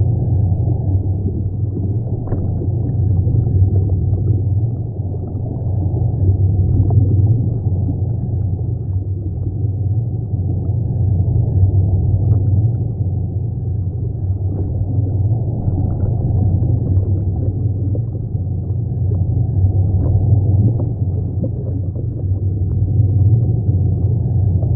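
Aquarium water and filter pump making a steady, muffled low rumble, with faint gurgling and small ticks.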